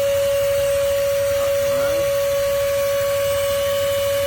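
VEVOR 5-ton electric hydraulic car jack's motor running with a steady whine while the jack lowers all the way down.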